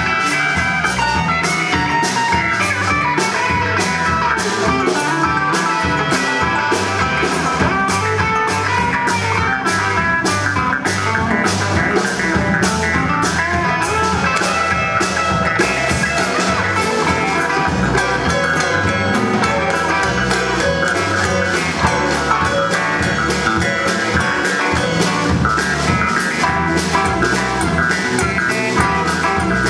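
A rock band playing live: electric guitar, bass, keyboards and drum kit over a steady beat.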